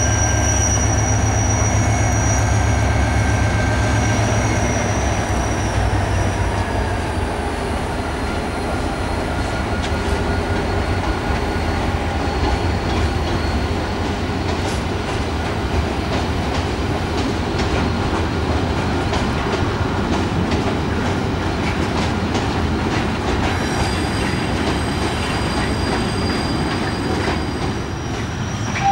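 NIR 111 Class diesel locomotive, with its EMD two-stroke engine, hauling a train of ballast hopper wagons past. The engine is strong for the first few seconds, then fades. After that, the hoppers' wheels click over the rail joints with thin squealing tones.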